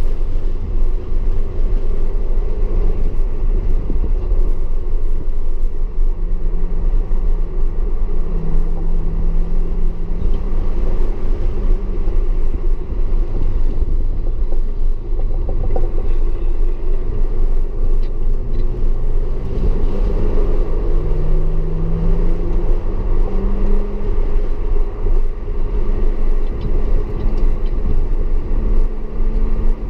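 Audi S4 driven hard on a race track: a steady, loud low rumble of engine and road noise, with the engine note rising and falling several times as the car accelerates and slows for corners.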